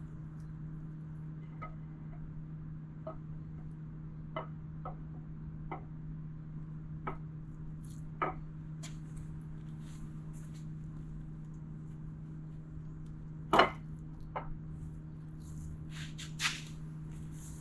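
Light metal clicks and knocks as a new camshaft is worked into a 4.0L straight-six engine block, about one a second at first, with a louder knock a little past the middle and another near the end. A steady low hum lies underneath.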